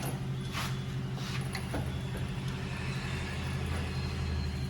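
Steady low machine hum, like a motor or engine running at an even speed, with a few light clinks in the first couple of seconds.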